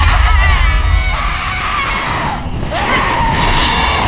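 Film soundtrack of a monster-attack battle: dramatic score over a deep rumble that fades about a second in, mixed with people shouting and screaming.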